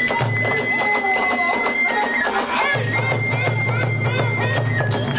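Kagura hayashi music: a bamboo fue flute holding a high, piercing note that steps slightly in pitch, over rapid clashing of tebyōshi hand cymbals and taiko drumming. The drum drops out about a second in and comes back near the middle.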